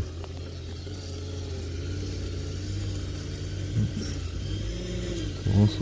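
An engine running steadily in the background, an even low hum with no rise or fall.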